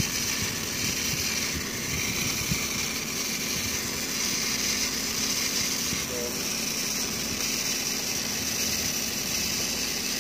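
Electric arc welding on a steel pipeline joint: a steady crackling hiss as the arc burns.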